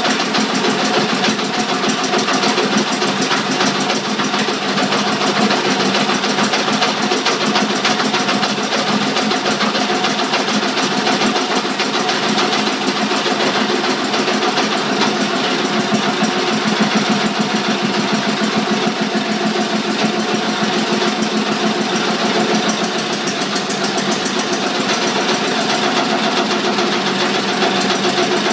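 Powerline 6/1 Listeroid single-cylinder diesel engine running steadily. Its generator head, which is not bolted down, is rattling and knocking, while the engine itself is not knocking; the set is still shaking even with both flywheels balanced.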